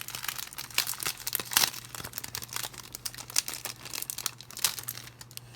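Packaging being crinkled and torn by hand as it is worked open, a dense run of irregular crackles and rips.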